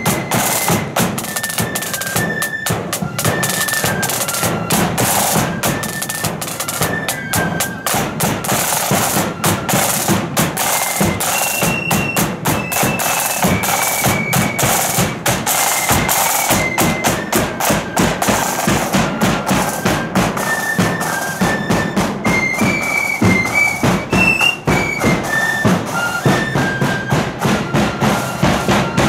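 Marching flute band playing: flutes carry a high melody over fast, dense snare drumming.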